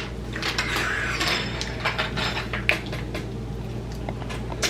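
Small hard plastic pieces clicking and clattering as a little Kinder Joy toy is handled and fitted together, with some light rustling.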